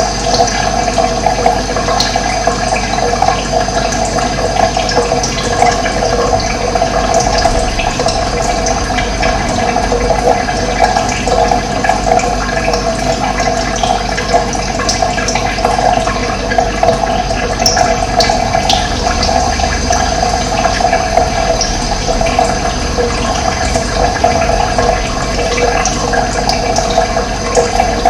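Steady, continuous rushing of running water, with a few brief faint bird chirps above it.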